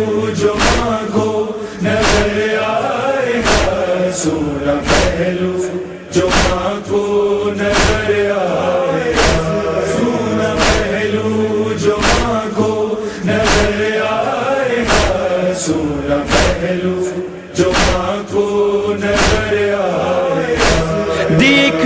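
Noha interlude: a chorus of voices chanting a drawn-out, wordless lament over a sharp, steady beat about every 0.8 seconds. A solo voice comes in at the very end.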